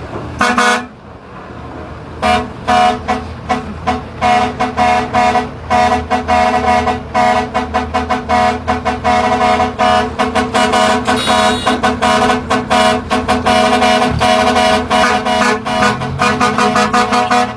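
A vehicle horn tooted rapidly over and over at one fixed pitch: a short burst near the start, then near-continuous quick honks, over a steady low engine hum.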